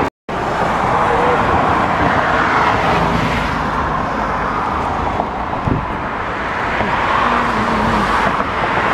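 Steady road traffic noise, swelling and fading slowly as vehicles pass, after a split-second gap at the very start.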